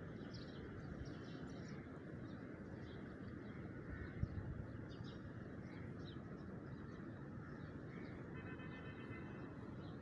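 Small birds chirping faintly and intermittently over a steady outdoor background hum. A single thump about four seconds in, and a held higher note lasting about a second near the end.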